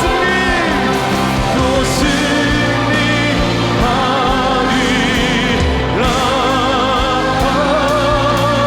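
Live contemporary Christian worship band playing with vibrato-laden vocals over keys, guitar, bass and drums. The sung line holds long notes with heavy vibrato, and the drums keep a steady beat.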